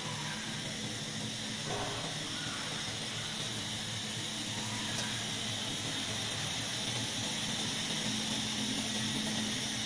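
CNC oscillating-knife foam cutting machine with automatic conveyor feed running: a steady hiss over a constant low hum while the foam sheet is fed across the table.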